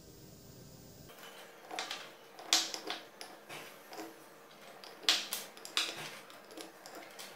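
Steel twist drill bits clinking and clicking as they are picked from a pile and dropped one at a time into holes drilled in a plywood storage block, with two louder clinks among a string of lighter ones.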